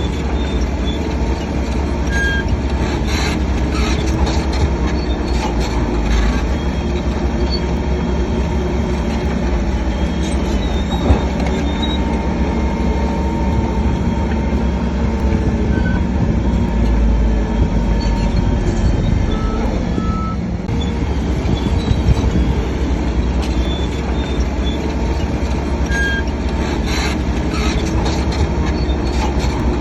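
Crawler bulldozer working: a diesel engine running steadily under load, with scattered short metallic squeaks and clanks from the running gear.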